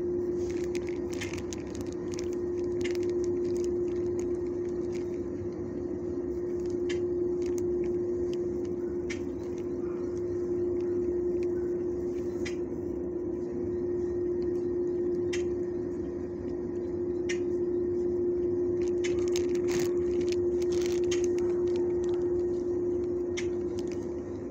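A steady machine hum holding one pitch, swelling and easing every few seconds, with scattered light clicks and rustles over it.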